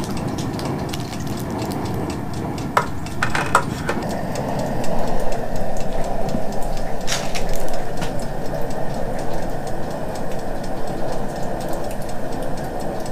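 Propane cooker burner running with a steady rushing flame noise, slightly louder from about five seconds in; a few sharp clicks and knocks about three to four seconds in, and one more near seven seconds.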